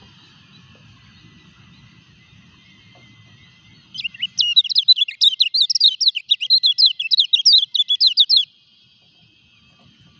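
Kecial kuning (yellow white-eye) singing a fast, high warbling run of quick notes, about seven a second, for roughly four and a half seconds starting about four seconds in. The bird is in moult and still singing.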